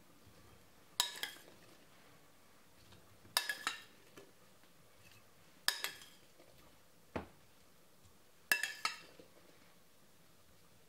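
Cutlery clinking against plates and bowls as food is served out: four short clusters of two or three clinks each, about two and a half seconds apart, with one duller knock about seven seconds in.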